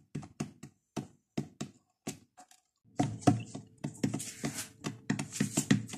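Chicks pecking at crumbled feed on a hard plastic floor: quick sharp taps, a few at a time with gaps at first, then a busier, denser run from about halfway through.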